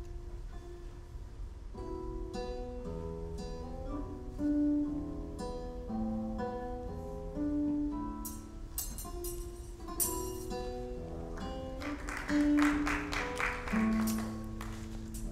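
Acoustic guitar music playing: a plucked melody of short stepping notes, with a burst of fast strumming near the end.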